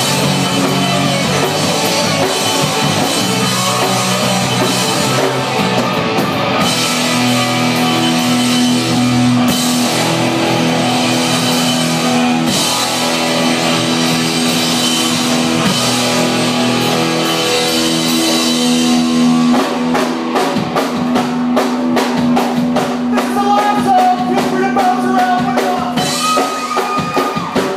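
Live rock band playing loud on electric guitars, bass guitar and drum kit. About two-thirds of the way in the drums break into a run of rapid hits.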